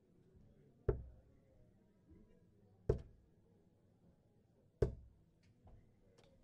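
Three darts thudding one by one into a Winmau Blade 4 bristle dartboard, each a single sharp knock, about two seconds apart.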